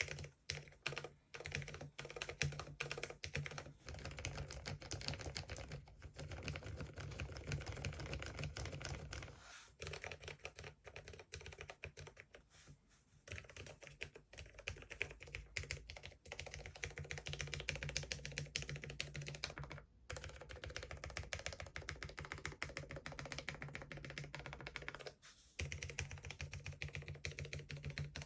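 Fast typing on a Cherry MX 10.0 LP low-profile mechanical keyboard: a continuous stream of key clicks with a few short pauses.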